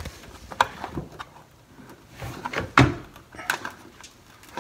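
Screwdriver clicking, scraping and knocking against the plastic access panel and cabinet at the bottom front of a front-load washer: scattered clicks and knocks, the loudest about three seconds in.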